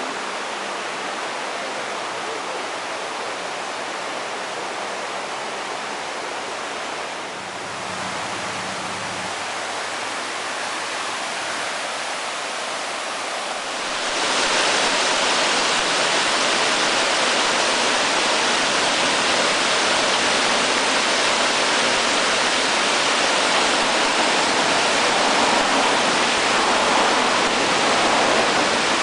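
Rushing water of a small mountain stream cascading over rocks, a steady hiss that becomes louder and brighter about halfway through.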